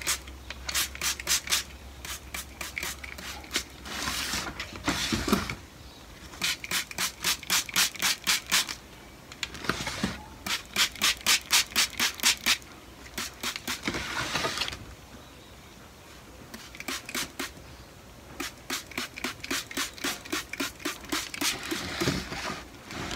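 Hand trigger spray bottle misting water onto plant leaves: quick runs of short sprays, about four a second, with pauses between the runs.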